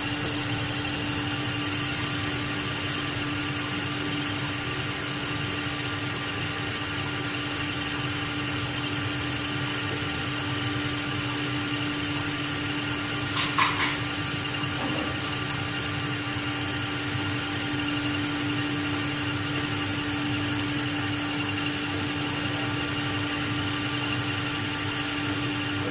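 A steady mechanical hum with a constant tone that does not change in pitch or level, and a short burst of clicks about halfway through.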